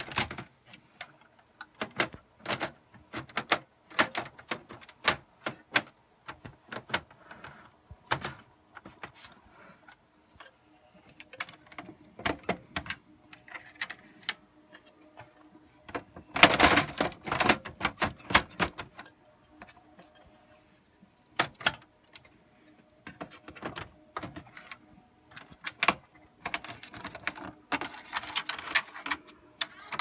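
Irregular clicks, taps and rattles of hands handling metal and plastic parts inside an HP ProLiant DL360e Gen8 server chassis while seating a new motherboard. There is a dense run of rattling about halfway through and another near the end.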